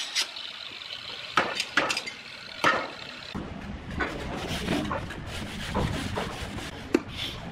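Glazed clay roof tiles knocking and clinking against each other as they are handled and set in place. There are a few sharp knocks in the first three seconds, lighter clattering after that, and one louder knock near the end.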